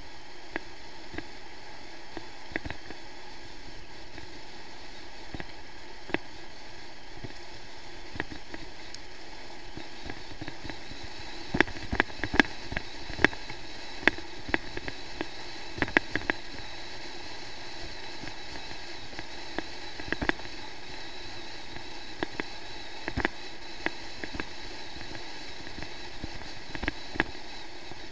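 Mountain bike rolling down a loose gravel track: a steady rushing noise with sharp rattles and knocks as the bike jolts over stones, thickest around the middle and again later on.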